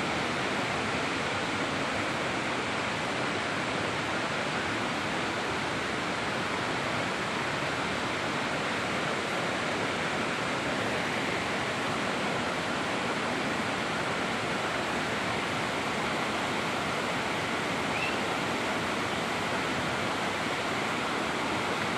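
Ponot waterfall rushing: a steady, even roar of falling water with no change throughout.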